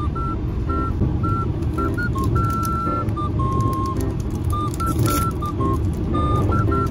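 Steady low running rumble of an E653-series limited-express train heard inside the carriage. Over it plays a simple melody of short, beep-like high notes stepping up and down. A snack packet's wrapper crinkles in the middle as it is handled and torn open.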